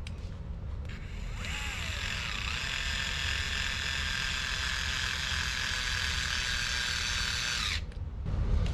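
A small electric motor whines steadily for about six seconds, gliding in pitch as it starts up, then cuts off suddenly.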